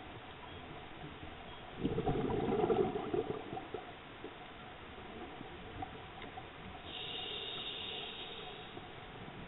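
Scuba diver's regulator breathing, muffled through an underwater camera housing: a burst of exhaled bubbles rumbles for about a second and a half, and a thinner hiss of inhalation comes later.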